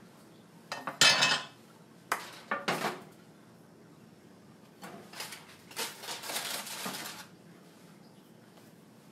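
Cookware being handled on a kitchen stovetop: a pan and utensils clatter and scrape in three bouts, the loudest about a second in and a longer, busier one near the middle.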